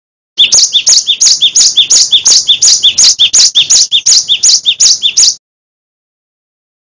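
Cinereous tit (gelatik batu) singing loudly: a fast, even run of sharp two-part notes, about four a second, that starts just after a brief silence and cuts off abruptly about five seconds in.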